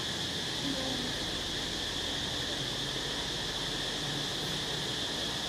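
A steady, high-pitched drone of insects, unbroken throughout.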